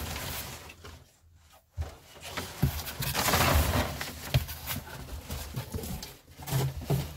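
Crumpled brown kraft packing paper rustling and crackling, with knocks of a cardboard box being handled. There is a brief hush about a second in, and the loudest rustling comes in the middle.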